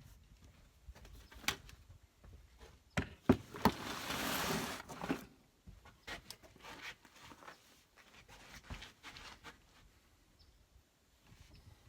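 Scattered handling clicks and knocks, with a rustle lasting about a second and a half near the middle and fainter ticks afterwards.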